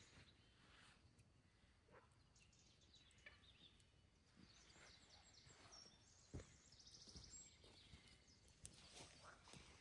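Near silence: faint outdoor ambience with a few soft, scattered knocks, the clearest about six seconds in, and a brief faint high trill near the end.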